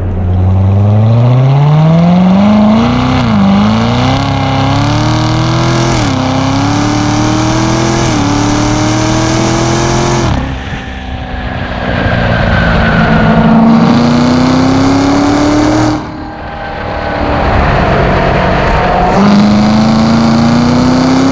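Corvette V8 exhaust heard close to the quad tailpipes under hard acceleration, the note climbing steeply in pitch through repeated pulls to about 5,000 rpm. It drops back sharply several times, easing off around ten and sixteen seconds in before pulling hard again.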